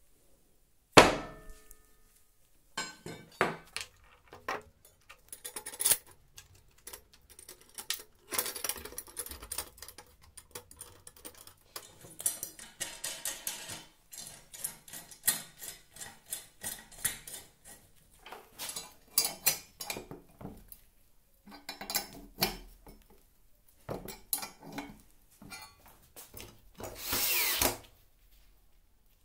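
Metal parts of a saw-blade tool knocking and clinking as they are handled and bolted together on a wooden bench. Near the end a cordless drill driver runs for about a second and a half, its whine rising.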